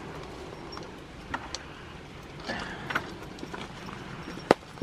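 Metal chain leash clinking in scattered short clicks as it is fastened around a log and to a dog's harness, with one sharp, louder click about four and a half seconds in.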